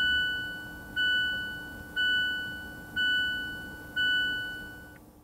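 Mazda CX-5 seatbelt warning chime heard inside the cabin: a two-note ding repeating about once a second, five times, each stroke dying away before the next, the sign that a seatbelt is unbuckled.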